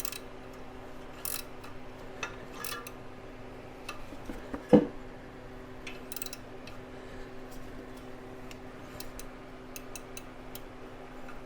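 Scattered light clicks and clinks of hands working a drive belt over engine pulleys, with one louder knock about five seconds in, over a steady low hum.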